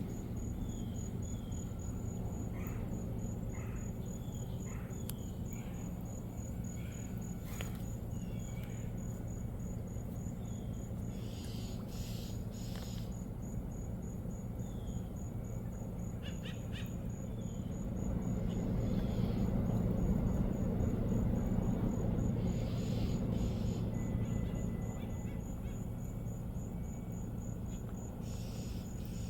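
A cricket chirping in a steady, fast, even pulse, with a few short bird chirps scattered across it. Under them is a low, steady rumble that swells for several seconds past the middle.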